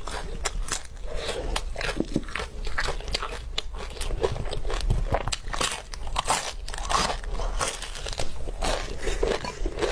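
Close-miked mouth sounds of a person biting and chewing pieces of braised meat: many irregular sharp clicks and crackles of teeth and mouth, with no steady rhythm.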